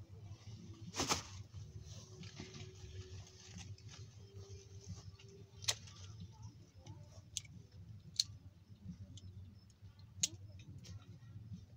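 Grape-picking shears snipping through bunch stems: a handful of sharp clicks spread over several seconds, the loudest about a second in, with some rustle of the bunches being handled, over a steady low rumble.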